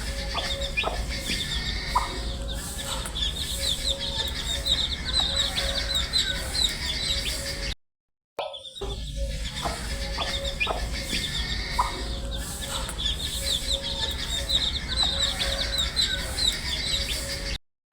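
A group of baby chicks peeping without pause, a dense chorus of short high chirps. It breaks off briefly near the middle and again just before the end, where the same stretch repeats.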